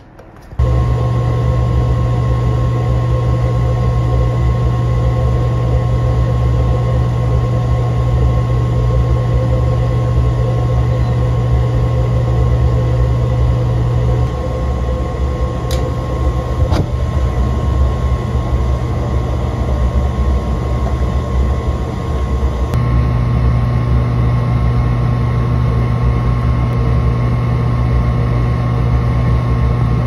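Power-vent blower on a gas water heater starting up when power is restored and then running with a loud, steady hum. Two sharp clicks come about halfway through as the ignition sequence runs, on a restart after the flame sensor was cleaned for an ignition-failure code.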